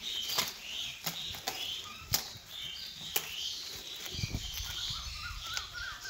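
A bunch of long green leaves rustling and snapping as two goats pull and tear at them while feeding, with many sharp crackles. A bird warbles faintly in the background near the end.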